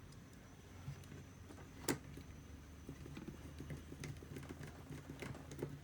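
Faint small clicks and taps of hands handling laptop parts, with one sharper click about two seconds in, over a low steady hum.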